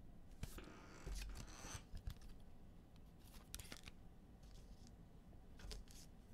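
Faint handling sounds of trading cards and plastic card sleeves: a few short scrapes and rustles with small clicks, loudest in the first two seconds.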